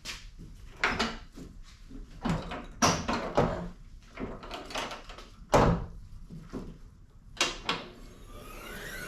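Jeep Wrangler hood being opened and closed on newly fitted gas struts: a series of sharp clunks and knocks, the loudest about five and a half seconds in. Near the end comes a squeak that slides up and down in pitch.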